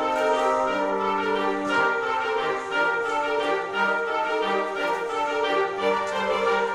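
Instrumental background music with long held notes, orchestral in style.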